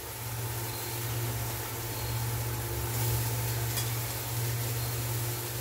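Chopped carrots and green beans sizzling in oil in a steel kadai, stirred with a steel ladle, with a steady low hum underneath.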